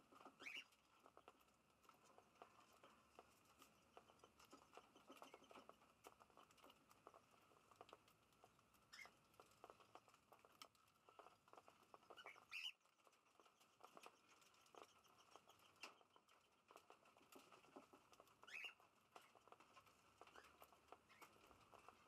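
Faint, rapid irregular ticking of cockatiels' beaks pecking and cracking seed, with a few short rising chirps from the flock.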